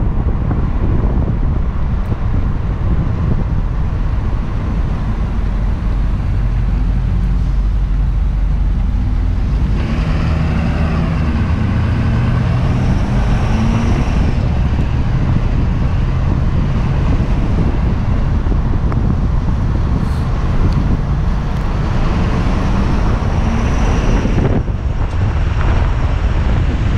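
2015 Ford F-350 dually pickup on the move: steady engine and road noise. The engine note rises as the truck accelerates about ten seconds in, and again a little past twenty seconds.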